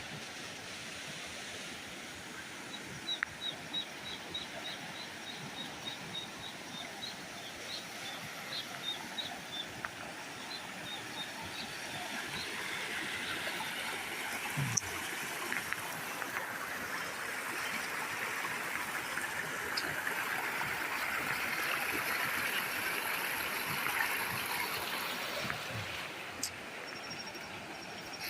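Steady rush of river water flowing, swelling louder in the second half. A quick run of short high chirps sounds over it in the first third.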